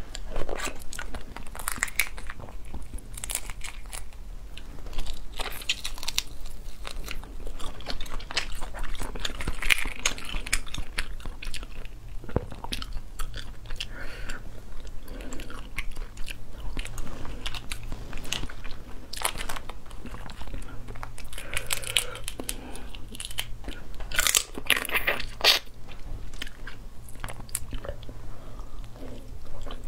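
Cooked crayfish being eaten close to the microphone: shells crack and snap as they are peeled apart by hand, mixed with biting and chewing, in irregular bursts.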